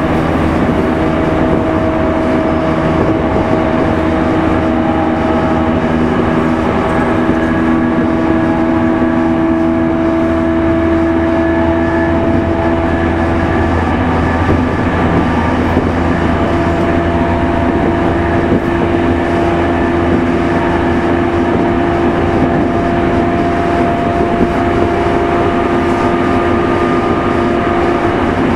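Running noise heard inside the motor car of a JR East E231 series electric train moving at a steady speed. A constant low rumble is overlaid by a steady motor-and-gear hum whose tones hold their pitch, shifting slightly about halfway through.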